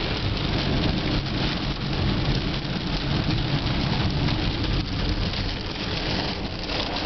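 1996 Toyota Tercel's 1.5-litre DOHC four-cylinder engine running as the car is driven, heard from inside the cabin under a steady wash of rain, water spray and tyre noise on a soaked road.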